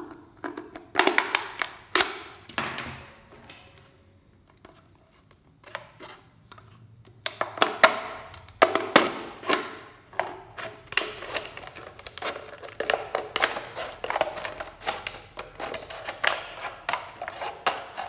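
Craft knife piercing a thin plastic drink bottle with a few sharp cracks, then scissors cutting around it in a long, quick run of snips, the plastic crackling as it bends.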